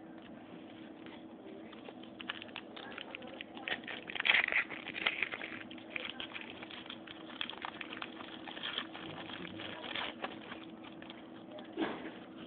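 Foil trading-card pack wrapper crinkling and crackling as a pack is opened and its cards handled, busiest about four to five seconds in. A steady low hum runs underneath.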